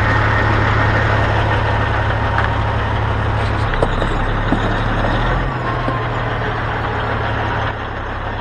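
Diesel engine of a Western Star semi truck running with a steady low drone, which steps down in loudness about a third of the way in and again near the end.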